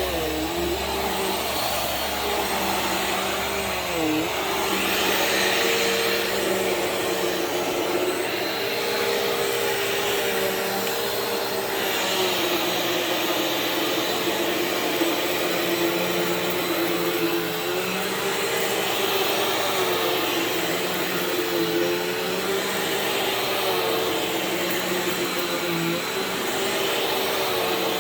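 Bissell CleanView Swivel Pet upright bagless vacuum cleaner running steadily, with its motor pitch dipping briefly now and then.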